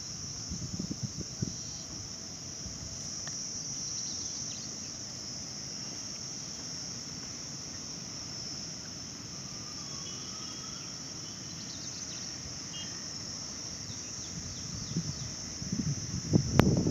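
A steady, high-pitched insect chorus that drones without a break, with a few low knocks early on and louder low knocking and rustling starting near the end.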